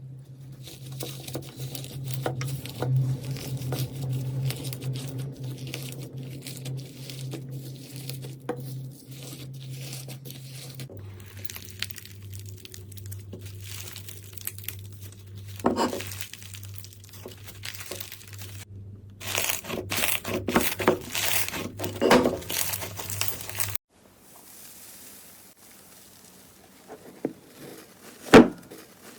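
Slime being squeezed and worked by hand, with crackly, crinkling sounds throughout and louder crackly bursts in the middle. A few sharp pops come near the end.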